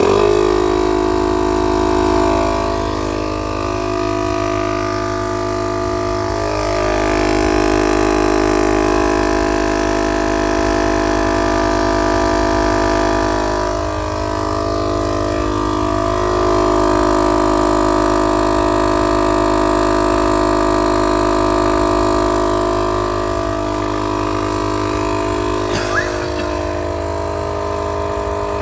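Motomaster 12 V direct-drive air compressor switched on and running, inflating a car tyre toward its preset 44 psi: a loud, steady mechanical hum that starts suddenly and keeps going, its pitch shifting a little now and then. A short click about 26 seconds in.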